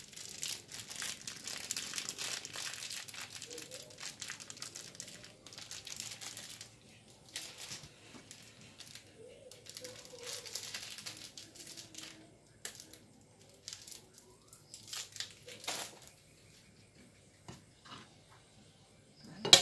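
Clear plastic wrapper crinkling as it is peeled open from a lump of belacan (shrimp paste). The crinkling is steady for the first six or seven seconds, then comes only in scattered crackles.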